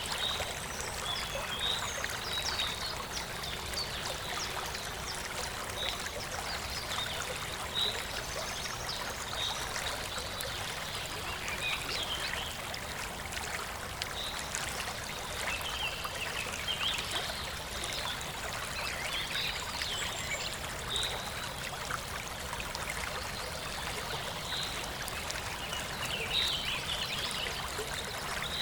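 A river or stream running steadily, with forest birds chirping over it in short, high calls every second or two.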